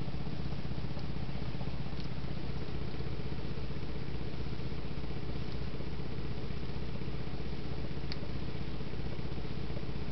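A two-handled stainless steel pan dancing on a glass-top electric stove, rattling against it in a fast, steady buzz, with now and then a sharper click.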